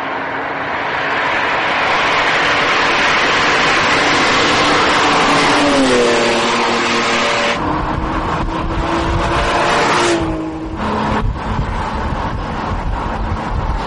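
BMW M1's 3.5-litre straight-six running hard at speed, its sound swelling as the car comes closer. About halfway through the sound cuts abruptly to a closer, deeper engine note that climbs in pitch and drops sharply at a gear change.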